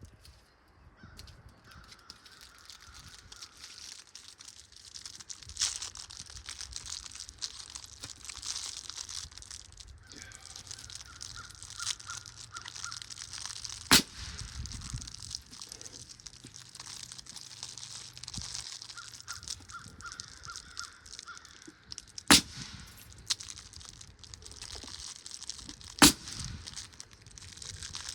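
Single hammer blows on framing lumber: a few light strikes, then three loud sharp ones about halfway through, two thirds through and near the end. Between them a bird calls in short quick runs of notes, three times.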